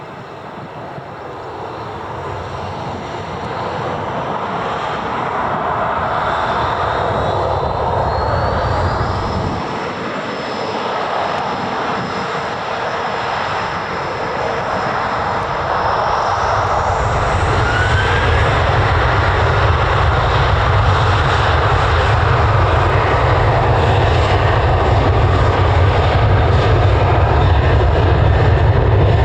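Fixed-wing aircraft engines running, getting steadily louder, with a high whine that rises in pitch several seconds in. A deep rumble joins about halfway through.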